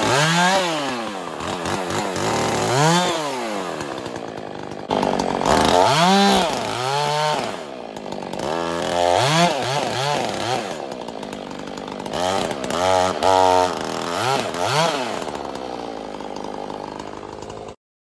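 Husqvarna Rancher 450 two-stroke chainsaw cutting into a tree trunk, its engine revving up and dropping back again and again. The sound cuts off suddenly near the end.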